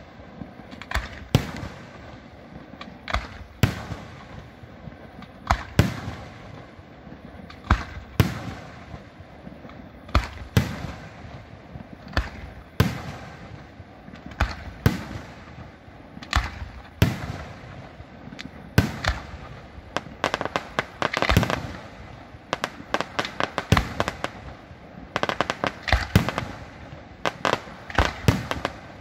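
Aerial firework shells bursting in a steady series of sharp bangs about every two seconds, each trailing off in an echo. Past the middle and again near the end the bangs come in fast, dense clusters.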